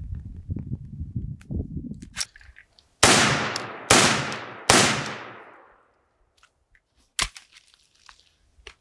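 Rifle firing three single shots a little under a second apart, each echoing away. A low rumble of handling comes before them, and a single sharp metallic knock follows about two seconds later.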